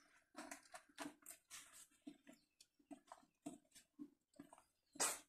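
Large green leaves rustling and crinkling in short, irregular scrapes as they are pressed down over tamales in a steel cooking pot, with one sharper, louder crackle near the end.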